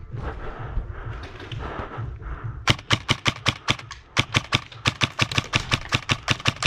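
Airsoft gun firing rapid shots, about six sharp cracks a second in short strings, starting a little under three seconds in. Before the shooting there is muffled, uneven noise.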